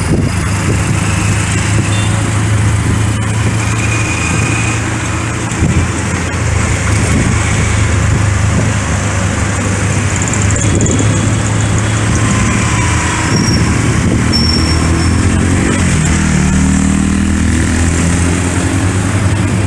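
Road traffic heard from a moving vehicle: a steady low engine drone over traffic noise, with a few short high-pitched tones around the middle and an engine note that climbs in pitch near the end.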